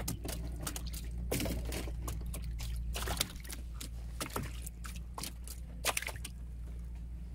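Water splashing and dripping onto the wet floor of a boat in irregular sharp splats, with the loudest splash about six seconds in as a speared fish is dropped in; a steady low rumble runs underneath.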